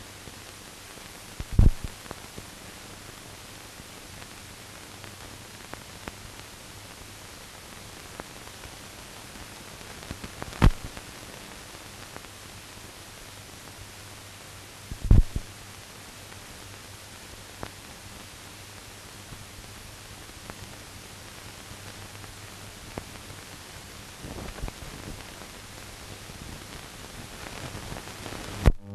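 Steady hiss with a faint low hum from the blank soundtrack of a silent film transfer, broken by three loud pops about a second and a half, ten and a half and fifteen seconds in, and a few fainter clicks.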